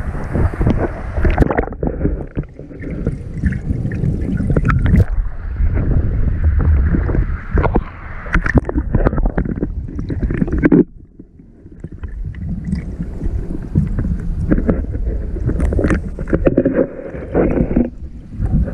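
Muffled underwater sloshing and knocking picked up by a GoPro held under water among crowding trout, the fish bumping against the camera. The sound dips briefly about eleven seconds in.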